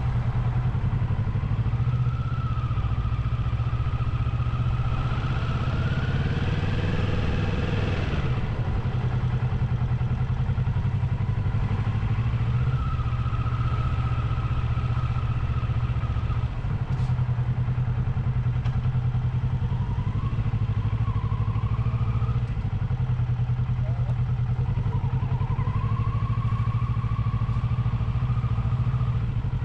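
Motorcycle engine heard from the moving bike at town speed: a steady low drone with a higher whine that climbs and falls several times as the rider speeds up and eases off, dropping sharply about eight seconds in.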